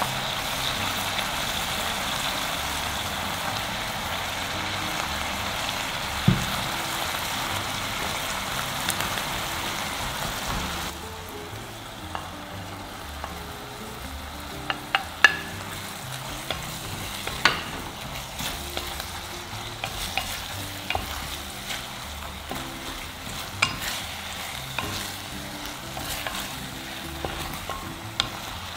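Pork sizzling in a hot clay pot, a steady sizzle that cuts down suddenly about a third of the way in. After that the sizzle is quieter, broken by sharp clicks and knocks of a wooden spatula scraping and striking the pot as the meat is stirred.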